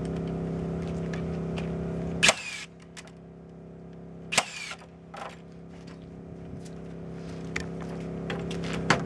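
A steady machine hum cuts off suddenly with a loud snap about two seconds in. Two more sharp knocks follow, and a hum slowly builds back up.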